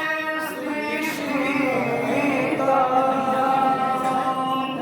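A voice singing a devotional chant in a slow melody, bending through the opening and then drawing out long held notes.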